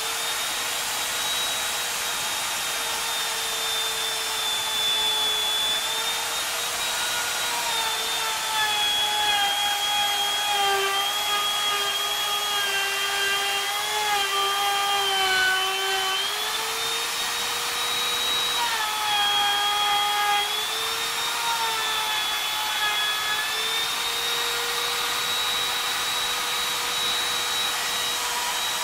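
Electric plunge router running at full speed with a high whine as its bit cuts along a wooden beam. The pitch sags under the load of the cut for several seconds about a third of the way in, and again briefly later, rising back each time the load eases.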